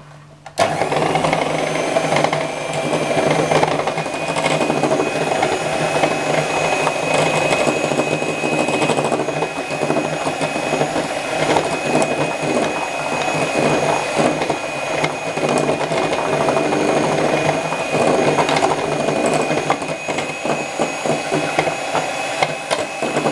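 Electric hand mixer switched on about half a second in and running steadily, its twin beaters whirring through pancake batter in a glass bowl, with a steady high-pitched motor whine over a low hum.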